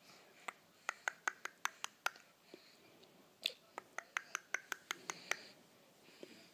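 Sharp, wet mouth clicks in two quick runs of about five a second, one starting about half a second in and one in the second half, with faint breathy sounds between.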